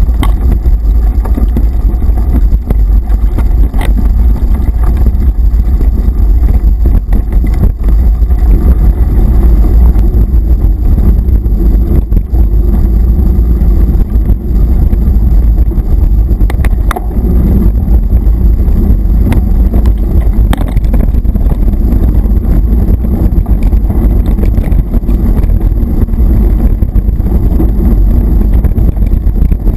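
Wind and road rumble on the microphone of a bike-mounted action camera as a mountain bike rides a rough dirt forest trail: a loud, steady low rumble with occasional sharp knocks from bumps.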